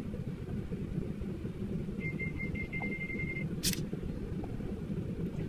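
Steady low background rumble, with a thin high tone for about a second and a half starting two seconds in, then a single sharp click near the four-second mark.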